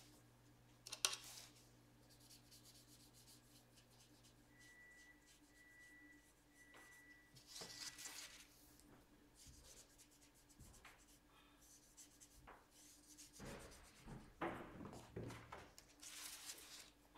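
Quiet art-making sounds: a fine paintbrush rubbing over coloured pencil on paper, with a sharp tap about a second in. Near the end, a louder rustle as the sheet of paper is slid and turned on the table.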